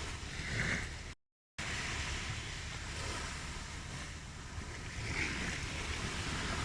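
Recorded ocean waves washing on a shore, a steady surf hiss that swells and eases. The sound cuts out completely for a split second about a second in.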